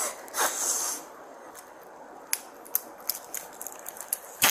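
A short rustle, then a string of small sharp clicks as an officer's hands remove a small item from a person's wrist, with the loudest click near the end.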